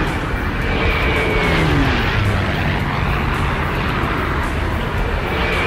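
Piston-engined propeller fighter plane flying past over a steady rush of engine and air noise. Its engine note drops in pitch as it passes, about a second in and again near the end.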